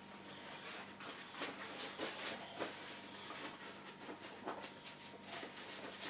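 Faint, irregular soft rustling and scratching of a paper tissue as a paintbrush loaded with painting medium is squeezed in it.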